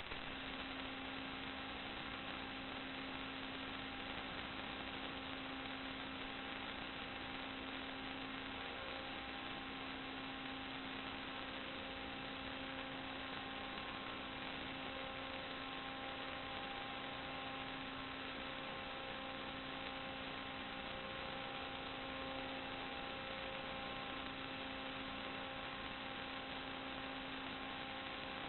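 Steady electrical hum over an even hiss, a few faint steady tones that hardly change.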